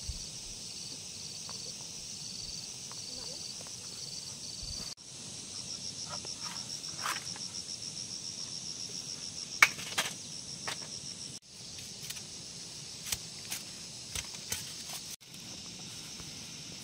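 Field insects chirping high-pitched, in short regular pulses at first and then as a fast, even trill, with scattered light clicks and rustles of plants being handled. The sound breaks off and changes abruptly a few times.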